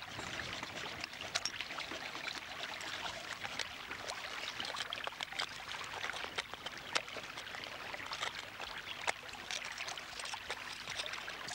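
Small knife clicking and scraping against heat-opened rock oyster shells as the meat is picked out, a few sharp ticks standing out, over a steady hiss.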